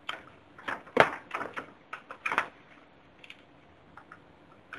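A quick, irregular run of sharp clicks and taps, then a few scattered faint ticks.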